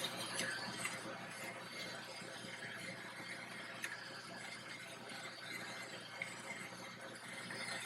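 Faint, steady background hiss with a few soft, isolated clicks.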